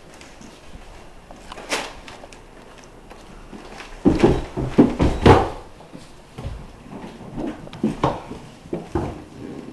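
Scattered knocks and bumps, with a cluster of loud thumps and clatter about four to five and a half seconds in.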